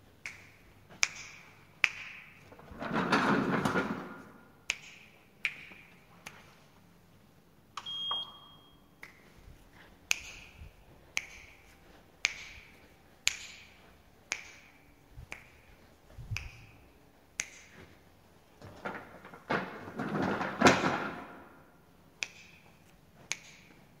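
Experimental noise music: sharp clicks about once a second, each with a short ringing tone. Two longer swells of harsh noise come in, one about three seconds in and a louder one near twenty seconds.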